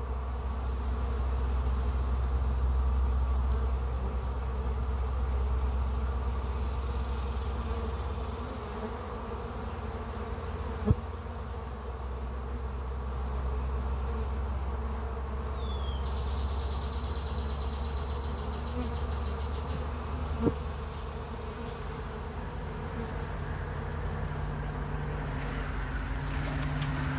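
A mass of honey bees buzzing in a steady drone, clustered on a trap-out cone. Two short, sharp clicks break in, about ten seconds apart.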